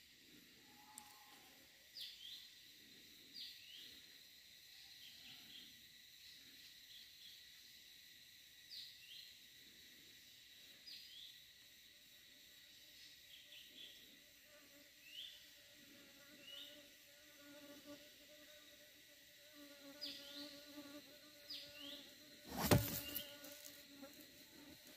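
Short, high, downward chirps every second or two over a faint steady high whine, then, about 23 seconds in, one sharp crack, much the loudest sound: a single shot from a scoped hunting rifle aimed into the tree.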